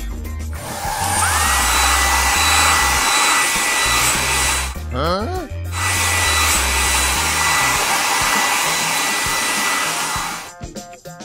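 Cartoon air-dryer blowing sound effect: a steady rushing blow with a high whine. It breaks off about halfway for a quick run of rising chirps, then carries on until it stops near the end. Background music with a low beat plays underneath.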